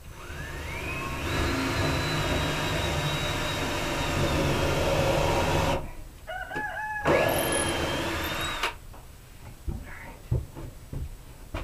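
Ryobi cordless drill spinning up with a rising whine and running steadily into a wooden post for several seconds, then a few quick trigger bursts and a second, shorter run. A few light knocks follow near the end.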